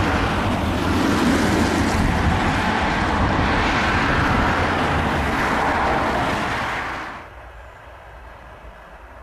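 Jet engines of a twin-engine airliner climbing out after takeoff: a loud, steady rush of engine noise. It cuts off abruptly about seven seconds in, leaving a much quieter low rumble.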